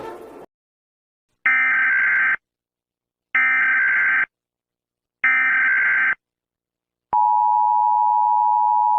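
Emergency Alert System tones. Three identical one-second bursts of the SAME digital data header sound about a second apart. About seven seconds in, the steady two-tone attention signal (853 and 960 Hz) begins and holds.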